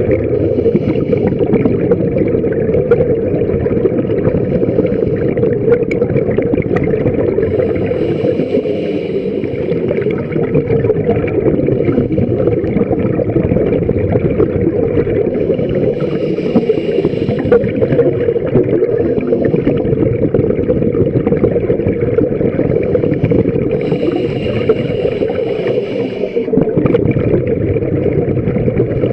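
Steady, muffled underwater rumble picked up through a camera's waterproof housing. A short hiss comes back about every eight seconds, in the rhythm of a scuba diver breathing through a regulator.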